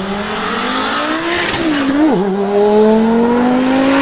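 Audi S2 coupé's turbocharged five-cylinder engine accelerating hard past and away, with one upshift about two seconds in: the pitch climbs, dips, then climbs again.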